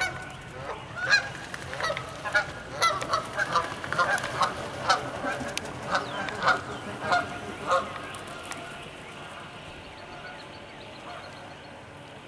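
A flock of Canada geese honking, many loud overlapping calls in quick succession that thin out and fade after about eight seconds.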